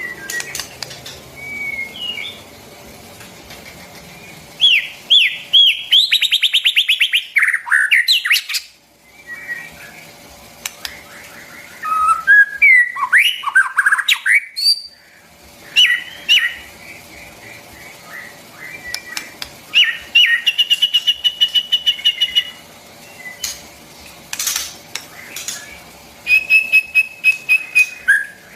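White-rumped shama singing: bursts of loud, varied phrases of clear whistles, sliding notes and rapid trills, separated by short pauses.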